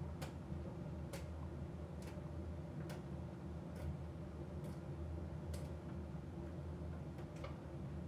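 AEG heat pump tumble dryer running in its drying phase: a steady low hum from the heat pump and drum, with a light tick about once a second as the load tumbles.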